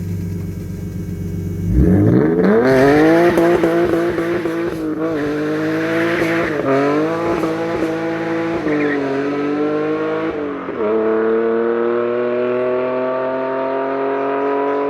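A car engine revving hard. Its note jumps sharply about two seconds in and holds high with short dips, breaks near eleven seconds, then climbs slowly and steadily.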